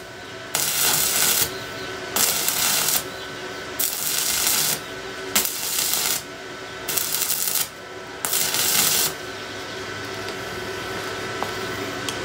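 Stick (MMA) arc welding from a Powerhouse 3-in-1 inverter welder: the electrode's arc crackles and sputters in six short runs, each under a second, with brief pauses between. The arc stops about nine seconds in.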